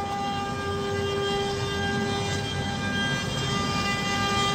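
Spindle motors of a four-head CNC wood router running, each rated 2.2 kW: a steady whine of several held tones over an uneven low machine noise.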